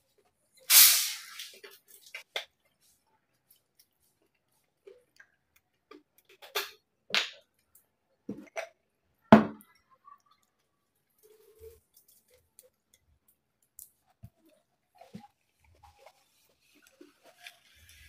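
Separate sharp crunches, clinks and knocks of eating close to the microphone: crispy pork hock being chewed and a glass mug of ice being handled and set down. The loudest comes about a second in, with three more strong ones between six and ten seconds.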